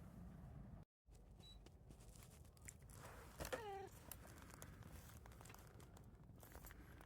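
Near-silent room with faint clicks and crinkles. About three and a half seconds in, a domestic cat gives one short meow that falls in pitch.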